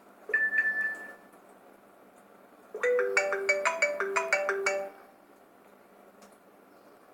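iPhone alert tones played back: a short high tone about a third of a second in, then from about three seconds in a two-second run of quick chiming notes, around five a second, forming a short ringtone melody.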